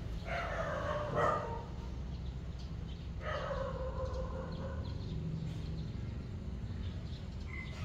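Two drawn-out animal calls that fall in pitch, the first near the start and the second about three seconds in, each lasting about a second, over a low steady rumble.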